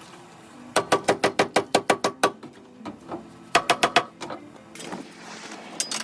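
Two quick runs of sharp knocks, about seven a second: about ten strikes, then four more a second later, with a brief hiss near the end.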